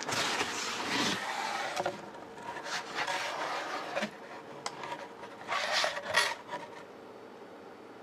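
Cardboard shipping box being opened by hand, with its flaps pulled back and cardboard rubbing and scraping in several bursts and a few sharp knocks. It goes quieter near the end.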